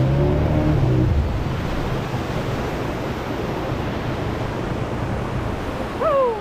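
A small boat's outboard motor running low and steady, stopping about a second in, then surf breaking and washing around the hull as the boat rides into the beach, with wind on the microphone. Near the end comes a short falling call.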